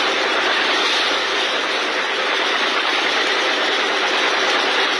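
A small fishing boat's engine running steadily under way, an unbroken loud noise with a faint steady hum in it.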